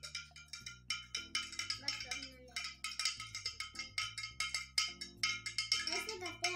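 A spoon stirring a drink in a glass pitcher, clinking rapidly and repeatedly against the glass, each clink ringing briefly.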